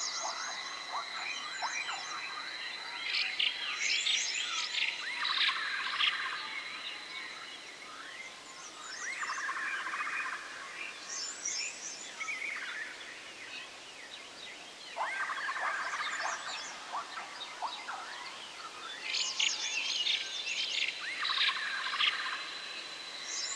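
Forest ambience of birds calling in repeated bursts of quick chirps and trills every few seconds, over a steady high-pitched drone that fades out partway through and returns near the end.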